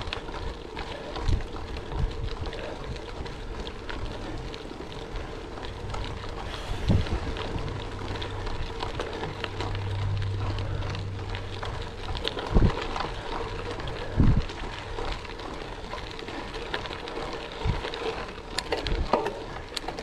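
Gravel bike rolling over a gravel road: steady crunch and rattle of the tyres on loose stones, with wind on the microphone and a few sharp thumps from bumps, the loudest two about twelve and fourteen seconds in.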